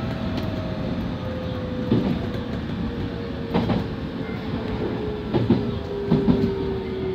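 Nankai 1000 series electric train heard from the cab, its traction motor whine falling steadily in pitch as it slows into a station. Steady running noise, with several sharp wheel clacks over rail joints and points.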